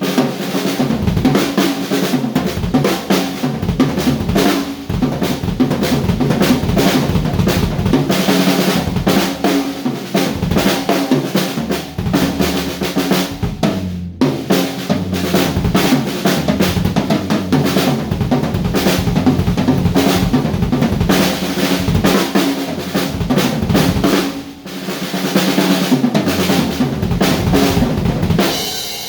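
Acoustic drum kit being played: a continuous run of drum and cymbal hits, with brief breaks about 14 and 24 seconds in.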